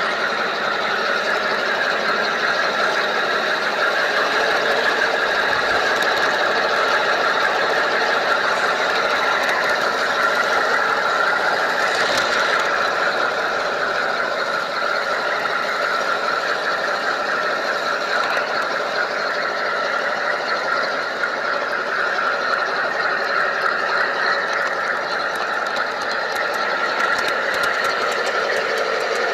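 Steady running sound of a G scale model train's electric motor and gear drive, with its wheels rolling on the track, heard close up from on board the moving train.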